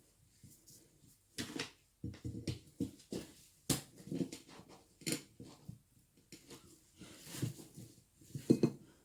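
Irregular metal clinks and knocks of hand tools and parts being handled, coming every half second to a second.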